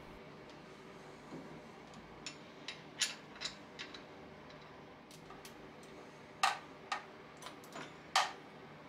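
Light metallic clicks of a ratchet and socket working the alternator pivot bolts on an Austin Metro's A-series engine, with a 13 mm socket standing in for a half-inch one. The clicks come in two irregular runs, starting about two seconds in and again from the middle, with the sharpest near the end.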